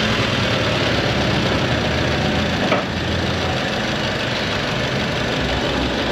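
Buick Encore's 1.4-litre turbocharged four-cylinder engine idling steadily just after starting, with a single short click about halfway through.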